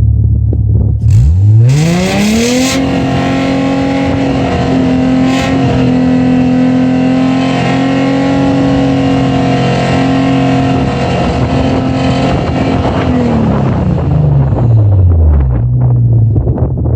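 Audi B8 S4's supercharged 3.0-litre V6 exhaust, idling, then revved up quickly about a second in and held at high revs for about ten seconds before falling back to idle near the end.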